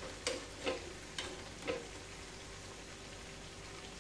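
Hot oil sizzling steadily around buckwheat-flour and Maggi noodle pakoras deep-frying in a pan. A metal slotted spoon knocks against the pan four times in the first two seconds as the pakoras are scooped out.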